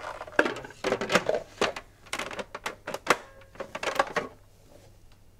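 Clear plastic lid being fitted and twisted shut on a Magimix food processor's bowl: a quick run of plastic clicks and knocks that stops about four seconds in.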